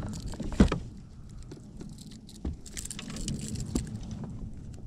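A freshly caught white bass being swung aboard a kayak and unhooked from a crankbait: scattered taps, rattles and flaps, the loudest a sharp knock about half a second in, over a low steady rumble.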